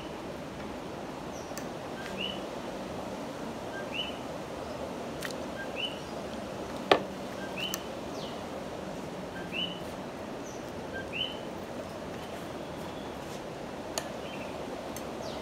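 Repeated two-note calls, a faint low note then a higher rising chirp, about every one and a half to two seconds over a steady background hiss: Puerto Rican coquí frogs calling. A sharp click about seven seconds in is the loudest sound.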